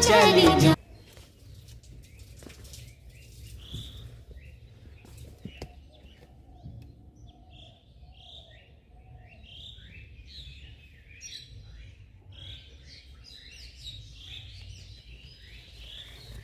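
Small birds chirping outdoors: many short, high chirps that come more thickly toward the end, over a faint low rumble. A sung music track cuts off about a second in.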